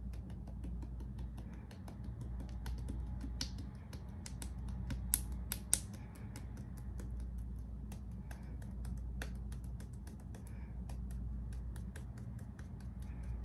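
Light tapping clicks like typing, several a second at an uneven pace, with two sharper clicks about five seconds in, over a steady low hum.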